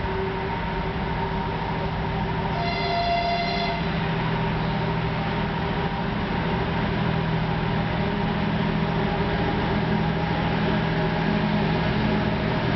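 Lithuanian Railways class 2M62U twin-section diesel locomotive, with two-stroke V12 diesel engines, running with a steady drone and growing gradually louder as it approaches at the head of a freight train. About three seconds in it sounds one short horn blast lasting about a second.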